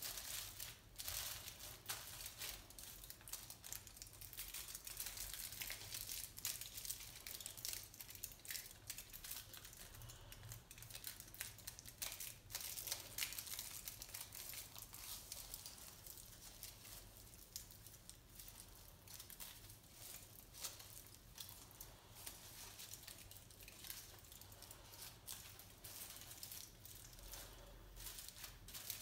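Aluminium foil crinkling and crackling under the fingers as hands press and rub a crumpled foil mask, in many small irregular crackles.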